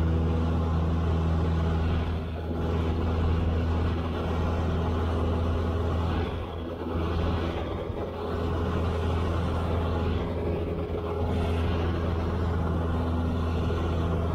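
Cessna 172's piston engine and propeller droning steadily, heard inside the cockpit, with a few brief dips in level.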